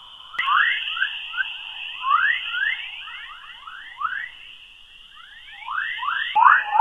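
Earth's magnetospheric 'chorus' radio waves converted to audio: a rapid string of rising chirps, several a second, over a steady high hiss. There are abrupt jumps in the sound about half a second in and near the end.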